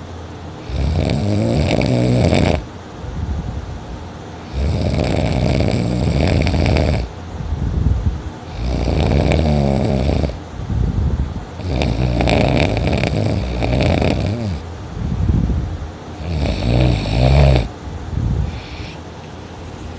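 A person sleeping on her back, snoring loudly and heavily: about five long snores, each a second and a half to three seconds, coming roughly every four seconds with quieter breathing gaps between.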